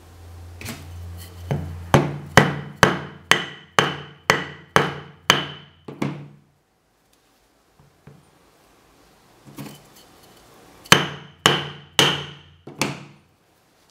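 A wooden block tapping the end of a steel rod set in a glass test tube, knocking the cured Stirling-engine power piston loose from the tube. A run of about ten sharp taps at roughly two a second, each with a short ring, then a pause and five more taps.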